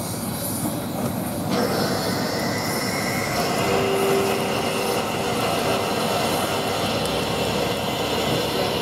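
Steam hissing steadily from the standing SR Merchant Navy class Pacific 35028 Clan Line. About a second and a half in the hiss gets louder and brighter, and a couple of seconds later a faint steady tone joins it.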